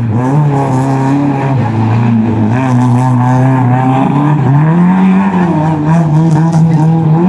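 Engine of a boxy Lada sedan driven hard around a cone course, held at high revs. Its pitch dips briefly about four and a half seconds in as the driver lifts off, then climbs back and holds higher.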